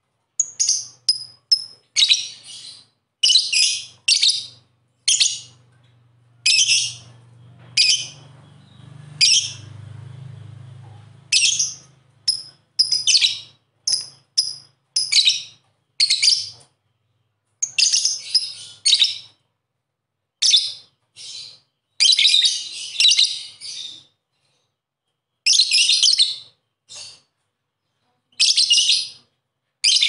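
Lovebird calling: a long run of short, shrill, scratchy chirps and squeaks, given in quick clusters with brief pauses between.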